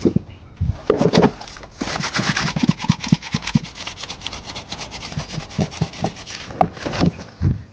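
A fast run of rough scraping and rubbing strokes, with a few knocks at the start and scattered knocks near the end.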